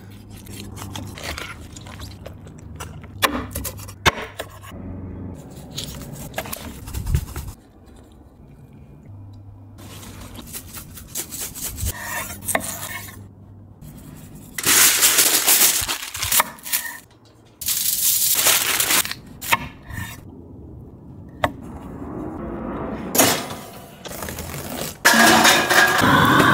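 Close-miked food-prep sounds: a knife cutting raw chicken on a wooden cutting board, with clicks and scrapes, and a seasoning shaker rattling in short bursts over halved potatoes. A louder, steady rushing noise comes in near the end.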